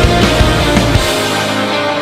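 Background rock music with heavy drums that stop about a second in, leaving sustained tones.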